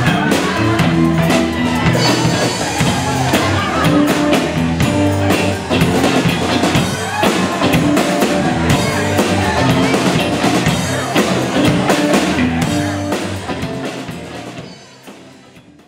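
Live rock band playing, with electric guitars and a drum kit with cymbals. The music fades out over the last two seconds or so.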